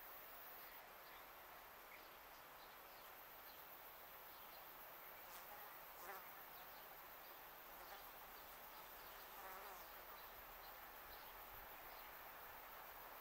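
Faint outdoor quiet with a flying insect buzzing past close by, its wavering buzz loudest about six and nine and a half seconds in, and faint short high chirps scattered throughout.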